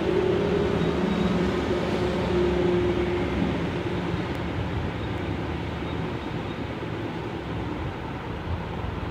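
Steady mechanical background noise with a low droning hum, stronger in the first three seconds or so and then fading into the noise.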